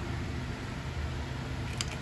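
Steady low workshop hum with one short, light tap near the end as the cylinder block is tapped down over the piston onto the crankcase.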